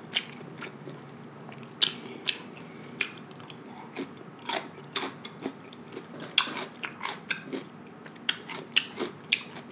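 Close-miked chewing of raw cucumber spears: crisp, wet crunches at irregular intervals, coming thicker in the second half.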